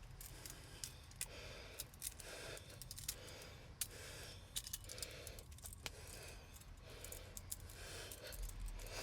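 Heavy breathing in and out about once a second, close to the microphone, from someone exerting himself in the heat. Scattered sharp metallic clicks, clinks and light scrapes of small tools and parts being handled.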